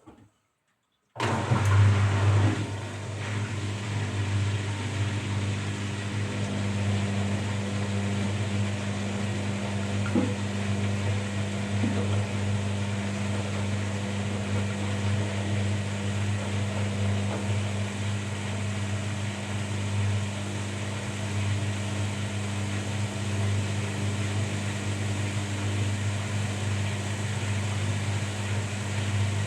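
Washing machine running with a steady motor hum and drum whir, cutting in abruptly about a second in.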